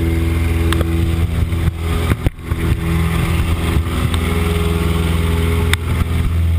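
Steady drone of a jump plane's engine and propeller, heard from inside the cabin with the door open, over a rushing wind. A few sharp knocks break through, near the start, in the middle and near the end.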